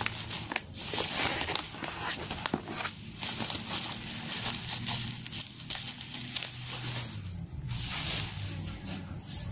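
Plastic packaging and bubble wrap crinkling and rustling as it is handled, with many small clicks and crackles.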